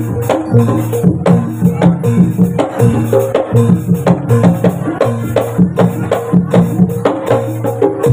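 Kuda lumping (jaranan) accompaniment music: drums and tuned gong-like percussion playing a steady rhythmic beat of about two strikes a second.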